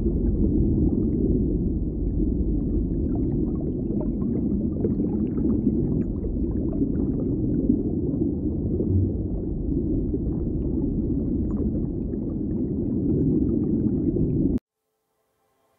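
Steady low rumble of background ambience by the aquarium glass, with faint scattered ticks, cutting off suddenly near the end.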